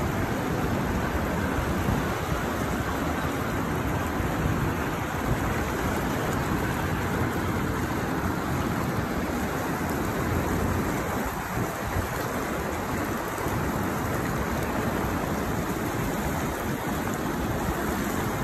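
Steady rush of a fast river current, an even hiss that holds without a break.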